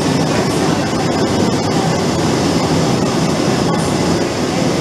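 Loud, steady mechanical din of distillery milling machinery running, with a constant low hum underneath.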